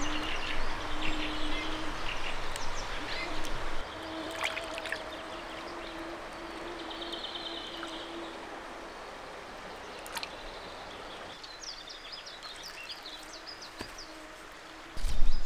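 Shallow, fast-flowing river rushing steadily, louder for the first few seconds, with a few short bird chirps and scattered clicks.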